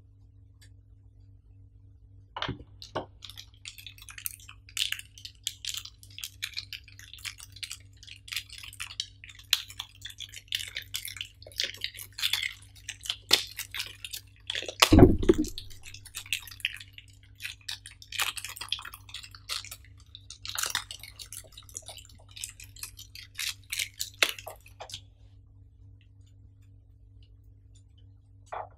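Clear plastic packaging crinkling and crackling as hands unwrap a bagged accessory, in dense irregular crackles, with one louder bump about halfway through.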